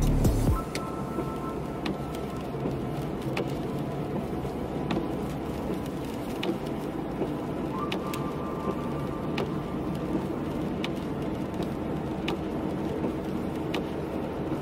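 Car driving on a wet road at night: a steady hiss of tyres and rain, with a faint click about every second and a half.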